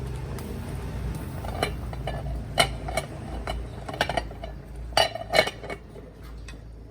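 Dishes and utensils clinking: a series of about eight sharp knocks and clinks, clustered in the middle seconds, over a low steady rumble.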